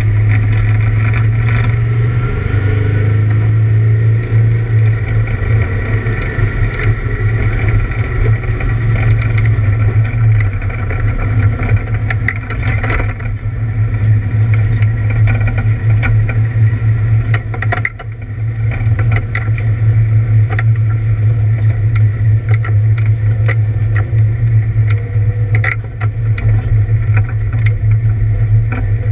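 Camaro race car engine running hard at a fairly steady speed with a misfire. Irregular sharp cracks punctuate the steady drone, and the engine note drops briefly about 18 seconds in and again near 26 seconds.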